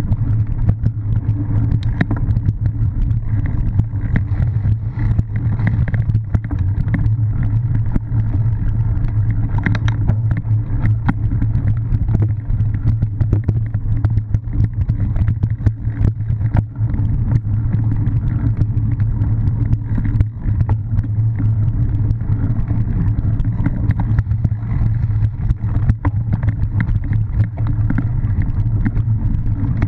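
Steady rumble of wind and ride vibration on an action camera carried by a cyclocross rider riding over bumpy grass and leaf-covered dirt, with frequent small knocks and rattles from the bike.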